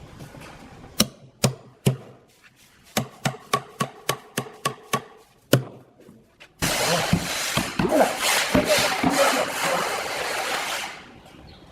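Woodworking tools on wood: a run of sharp hammer knocks, some with a slight ring, at an uneven pace. About six and a half seconds in they give way to a loud, dense rasping of a tool cutting into wood, which lasts about four seconds and then fades.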